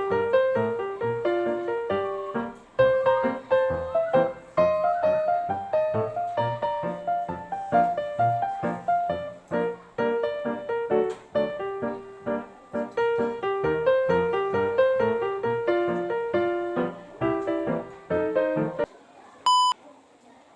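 Instrumental background music: a quick melody of short piano-like notes. It stops about 19 seconds in, followed by one short electronic beep.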